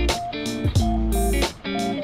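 Background instrumental music led by guitar over bass, with a steady beat.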